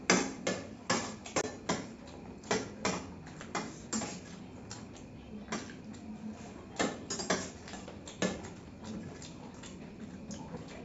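Steel spoons clinking and scraping on stainless steel plates as two people eat, in irregular sharp clicks about one or two a second.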